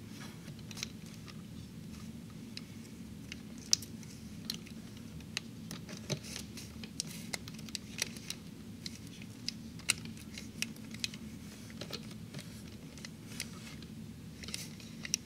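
Laparoscopic forceps handling a paper crane: irregular sharp clicks and taps of the metal instruments and creasing paper, over a steady low hum.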